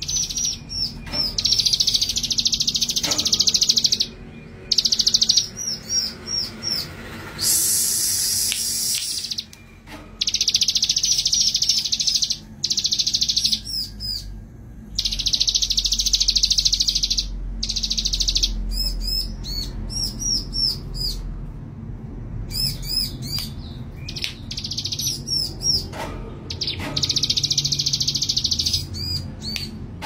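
Male ciblek gunung, a prinia, singing persistently in its cage. Long buzzing trills of a second or two alternate with quick runs of sharp, high chips, with brief pauses between phrases.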